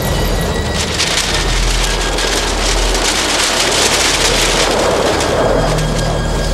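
Soundtrack effect: a loud hissing, crackling rush that swells about a second in and eases near the end, over a steady low rumble.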